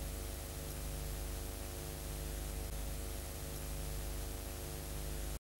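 Steady static hiss over a low electrical hum, cutting off abruptly near the end.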